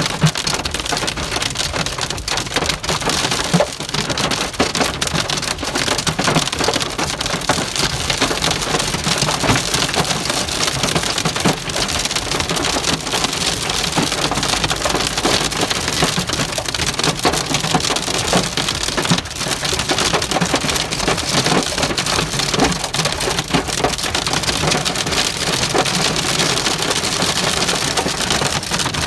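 Hail and heavy rain drumming on a car's roof and windshield, heard from inside the cabin: a loud, dense, unbroken clatter of countless small impacts.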